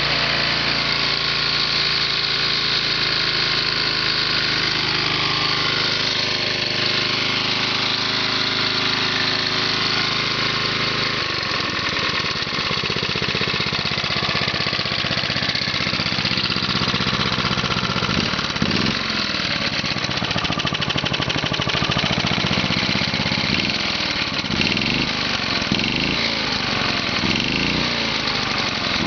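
Briggs & Stratton model 114702 lawn mower engine running warm after a starter clutch repair. It runs steadily at first, changes speed about 11 seconds in, then is revved up and down again and again through the last ten seconds or so.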